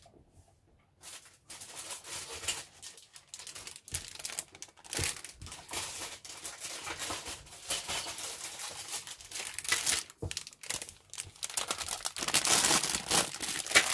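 Clear plastic kit bag crinkling and rustling as it is handled, in an irregular run of crackles that starts about a second in and grows louder near the end.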